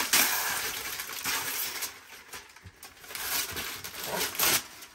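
Gift-wrapping paper being torn and crumpled off a cardboard box, in two spells of ripping and rustling with a short lull in the middle.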